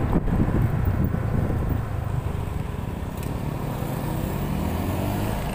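Motorcycle engine running steadily while riding, with wind buffeting the microphone. The wind rumble is heavier for the first two seconds, then eases.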